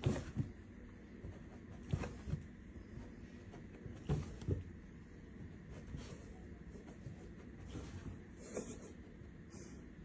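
Quiet room noise with a handful of soft thumps, two of them close together about four seconds in and one more near the end.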